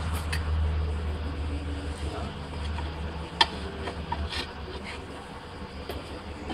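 Dual-mass flywheel being rocked and turned by a gloved hand: scraping metal and glove on metal, with a few short sharp clicks, the loudest about three and a half seconds in, over a low steady hum.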